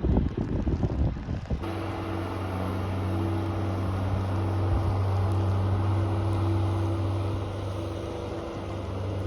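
Wind buffeting the microphone, then about a second and a half in, a sudden cut to a steady low machine hum with a few held tones.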